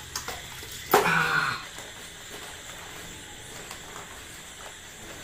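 Hands mashing boiled matoke (green cooking bananas) in a metal pot: a sharp knock against the pot about a second in, then faint, soft handling sounds with a few light clicks.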